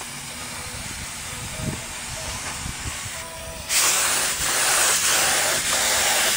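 Compressed-air paint spray gun spraying a coat of paint: a loud, steady hiss that starts suddenly a little past halfway, when the trigger is pulled.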